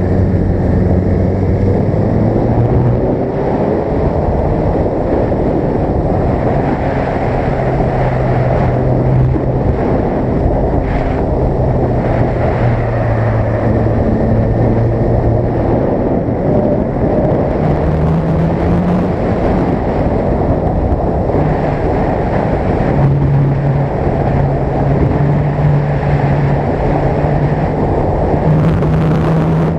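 Sport motorcycle engine running under way, its pitch stepping up and down as the speed changes, under heavy wind noise on the microphone.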